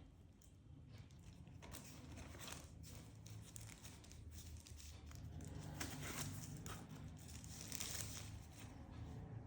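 Packaging being handled: plastic and paper crinkling and rustling in the hands, with some tearing. It is faint at first, gets busier after the first second and a half, and is loudest around six and eight seconds in.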